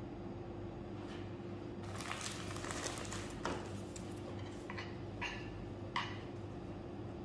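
Rustling of clear plastic food-prep gloves while filled crackers are set on a baking tray, followed by a few light clicks and taps, over a steady low hum.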